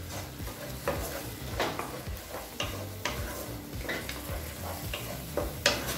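Blended tomato and onion paste sizzling in oil in a kadai while a spatula stirs it, with irregular scrapes and knocks of the spatula against the pan. It is the tomato being sautéed into the masala.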